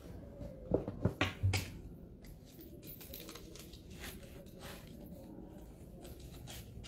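Phone handling noise: a quick run of about four knocks and rubs about a second in, then faint scattered clicks as the phone is held and tapped.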